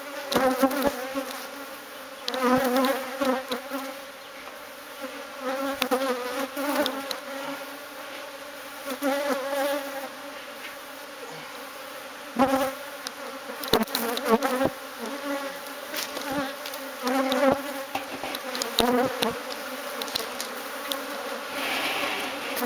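Honeybee colony buzzing steadily, the buzz swelling and wavering again and again as the drum that holds it is handled, with scattered knocks.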